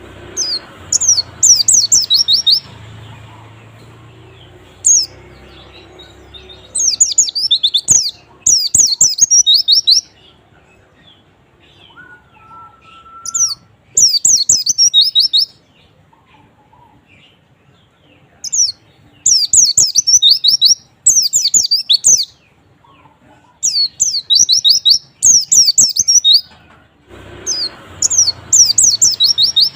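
White-eye (pleci) singing: bursts of rapid, high-pitched twittering phrases, each a second or two long, repeated with short pauses. This is a lure song of the kind played to prompt a quiet caged white-eye to start singing.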